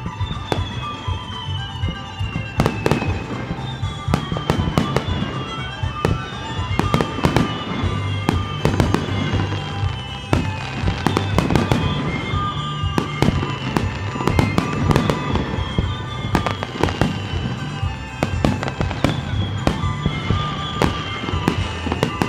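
Aerial fireworks shells launching and bursting in quick succession, many sharp bangs with no let-up, with music playing along with the display.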